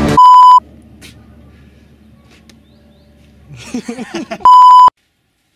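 Two loud 1 kHz censor bleeps, each under half a second, the second coming about four seconds after the first. Between them there is faint background sound, with a short burst of voice just before the second bleep.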